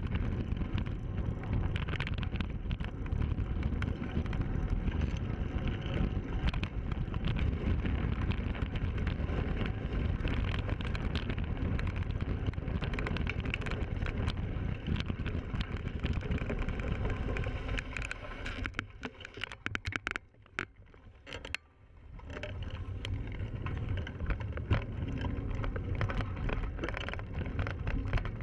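Wind buffeting a handlebar-mounted camera's microphone, mixed with the rattle and clicking of a bicycle running over a rough dirt trail. About two-thirds of the way through, the noise drops away for a couple of seconds, leaving a few clicks, and then builds up again.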